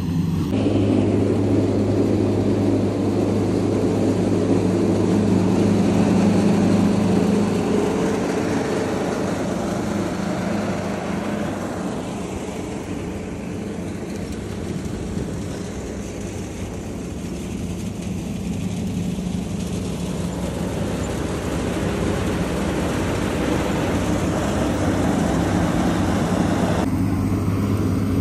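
Tractor engines running steadily under load as they drive straw reaper machines that chop wheat stubble into straw and blow it into trolleys. It is a continuous drone that swells, eases off around the middle and builds again as the machines pass.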